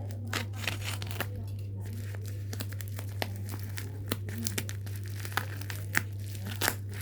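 Packaging being crinkled and torn open by hand, in irregular crackles and rustles over a steady low hum.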